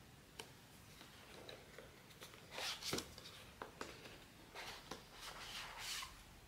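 Blind-box packaging being handled and opened: short crinkling, rustling bursts of paper and plastic with a few small sharp clicks, the loudest about three seconds in.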